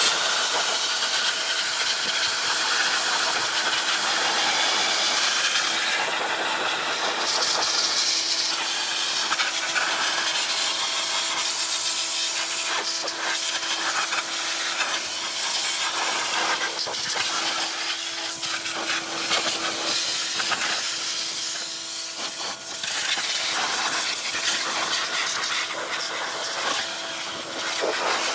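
High-pressure water spray hissing as it blasts the metal frame, wheel and engine housing of a generator. A steady low hum runs underneath.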